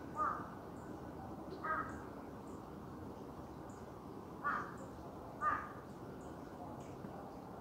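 Four short, harsh animal calls, crow-like caws, spaced one to three seconds apart, over a steady low hiss.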